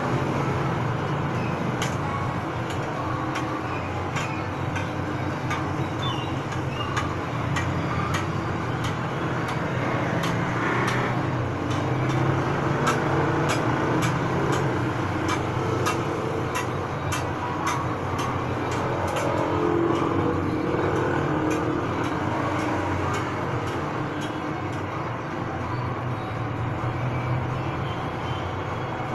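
Short metallic clicks, roughly one a second, from a hand tool gripping and bending the teeth of a steel hand-saw blade one by one to give the saw its set, over a steady low hum.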